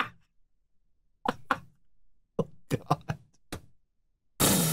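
A person laughing in short, breathy bursts with pauses between them, ending in a loud breathy exhale near the end.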